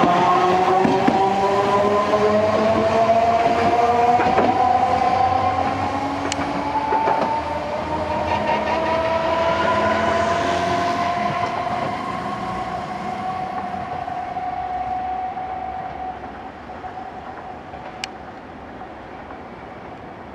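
Chikuho Electric Railway 2000-series tram-type electric railcar accelerating away: its traction motors whine, rising slowly in pitch as it gathers speed, and fade as it draws off. There are occasional sharp clicks.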